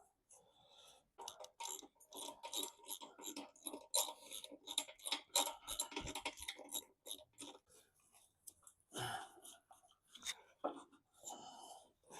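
Hand socket ratchet clicking in short, irregular runs as a stiff intake-manifold bolt on a Mercedes M110 engine is worked loose. Near the end there are a few separate metallic clicks and knocks.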